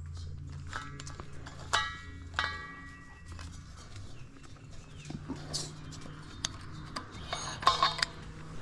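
DuroMax XP16000iH inverter generator's engine running steadily at high idle, a low hum, while hands click and knock at a propane tank's valve and regulator. Two short squeaky sounds come about two seconds in.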